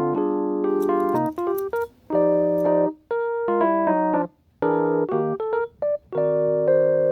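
Background music: soft piano-like keyboard chords played in short phrases with brief pauses between them.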